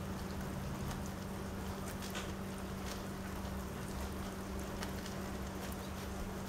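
Rain falling on a wet wooden deck: a steady hiss of rain with scattered single drop ticks, over a steady low hum.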